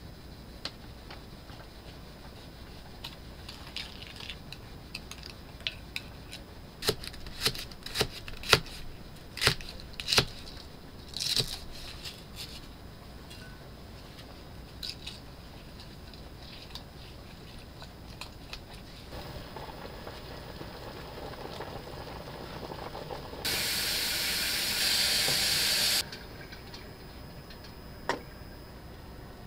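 Hands-on kitchen prep: a run of sharp clicks and taps from utensils against a glass mixing bowl and cutting board over several seconds. Near the end comes a loud, steady hiss lasting about two and a half seconds that stops sharply, then one last click.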